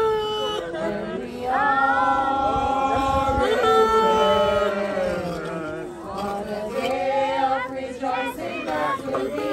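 A group of voices singing a hymn together, with long held notes.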